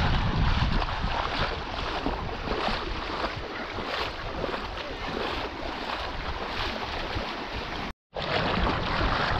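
Steady rushing wind and water noise with wind buffeting the microphone, cut off for a split second about eight seconds in.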